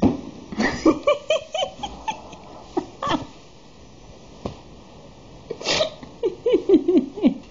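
A kitten mewing in short, repeated cries: a run of them near the start, a couple around three seconds in, and a quicker run near the end. There is a sharp click at the very start.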